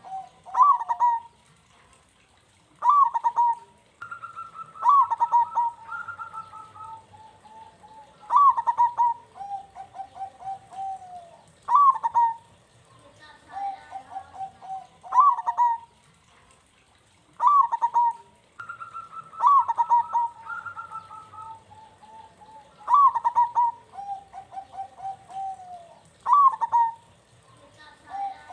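Perkutut (zebra dove) cooing: bursts of short, stuttering coo notes alternating with longer two-pitched phrases. The same sequence repeats about every 14 seconds, a looped bait song meant to set other perkutut singing.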